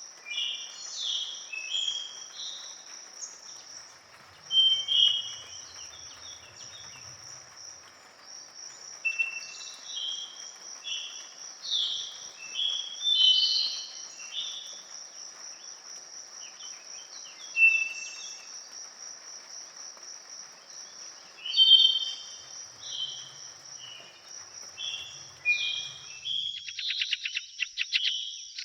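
Several forest birds singing in short chirping phrases over a steady, high-pitched insect trill. Near the end a rapid stuttering trill comes in.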